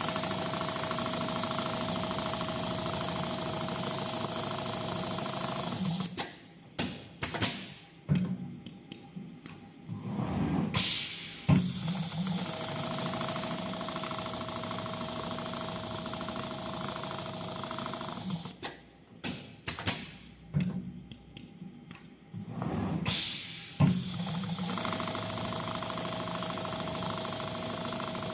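Richpeace rotating-head computerized sewing machine stitching a pattern into leather, in three steady runs of several seconds each. Between the runs come short spells of separate clicks and knocks.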